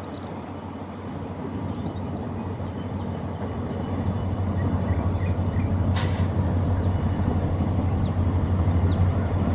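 Diesel locomotive engine, a steady low drone growing louder as the train comes closer. Short high chirps sound above it, with one sharp click about six seconds in.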